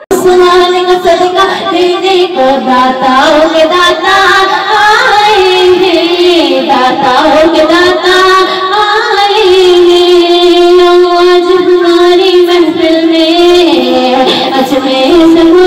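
A woman singing a naat, a devotional praise poem, sung into a handheld microphone in a single melodic voice with long, wavering held notes.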